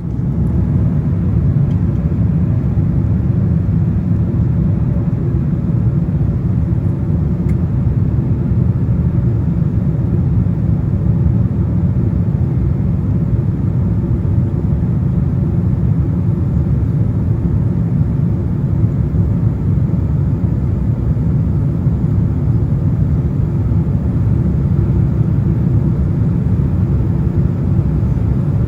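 Steady low rumble of engines and airflow inside the passenger cabin of a Boeing 767-400 airliner on approach, with no change in level.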